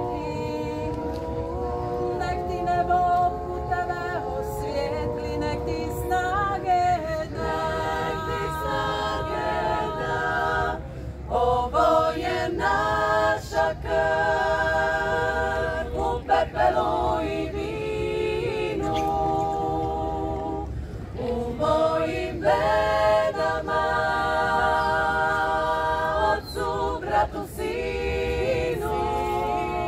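A women's vocal group singing a cappella in several-part harmony, holding long chords in phrases a few seconds long with brief breaks between them.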